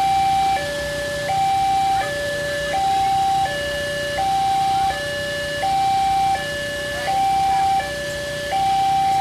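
Railway level crossing's electronic warning alarm sounding, two notes alternating steadily, a higher and a lower tone each held about three quarters of a second. The crossing is activated, warning that a train is approaching.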